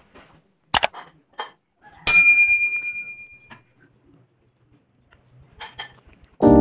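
A utensil strikes the glazed ceramic bowl once with a clear ringing ding that fades over about a second and a half, between a few light clinks and clicks as food is served into it. Piano music comes in near the end.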